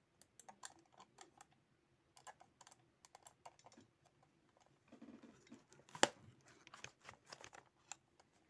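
Irregular light plastic clicking of computer buttons as the repaired mouse is tested on a laptop, with one sharper, louder click about six seconds in.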